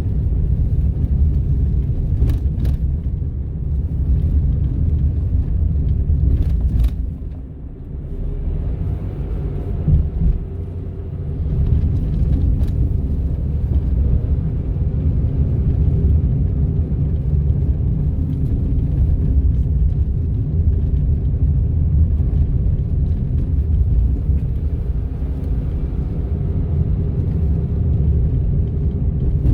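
Cabin noise of a Honda N-ONE kei car on the move: a steady low road rumble with an even hum running through it. The level dips briefly about a third of the way in, and there are a few faint clicks.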